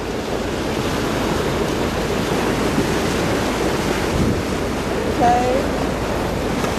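Steady rush of water along the hull of a moving boat, mixed with wind buffeting the microphone. A short voice-like sound comes about five seconds in.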